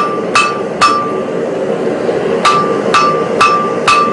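Hand-hammer blows on a red-hot 4140 steel hammer head on the anvil, dressing the face to a slight taper. Each blow gives a short metallic ring. There are three quick blows, a pause of about a second and a half, then four more at about two a second.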